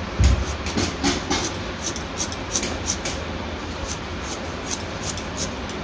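A soft thump, then irregular light clicks and taps, a few a second: plastic spice jars being handled and small fish being mixed with turmeric in a steel bowl. A steady low background noise runs underneath.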